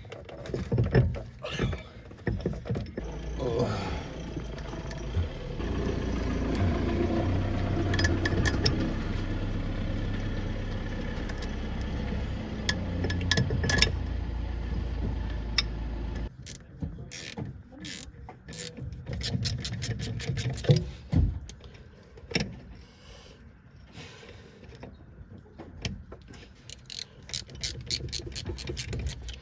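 Workshop tool sounds: a steady machine hum runs for about twelve seconds and stops suddenly, followed by bursts of rapid clicking like a hand ratchet being worked.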